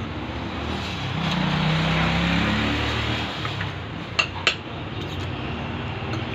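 Street traffic with a motor vehicle passing, its low engine tone swelling and slightly rising between about one and three seconds in. Two light clinks of chopsticks against a dish come about four seconds in.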